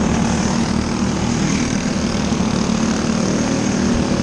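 A field of winged dirt-track sprint cars running together, their engines making a loud, steady drone as the pack takes the green flag.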